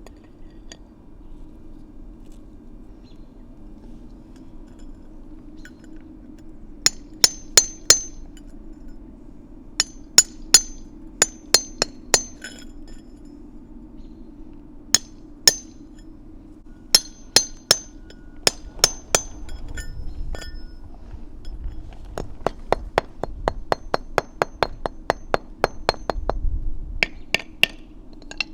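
A chisel is struck to chip dried mortar off the underside of a brick paver so it will lay flat. The strikes are sharp metallic clinks that come in short clusters of two to four, then a quicker run of taps at about four a second near the end.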